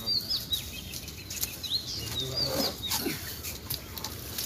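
Birds chirping: a string of short, high calls that rise and fall in pitch.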